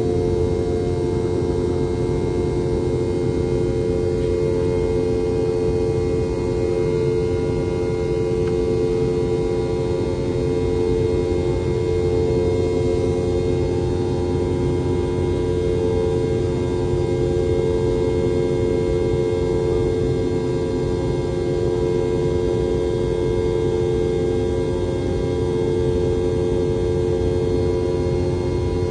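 Rolls-Royce BR715 turbofans of a Boeing 717-200 at takeoff power, heard inside the cabin from a rear row beside the tail-mounted engines: a steady heavy rumble with a strong droning whine and several higher tones held over it.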